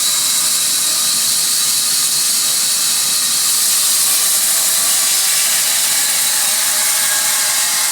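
Sawmill saw running with a steady, high hiss that holds at one level without a break.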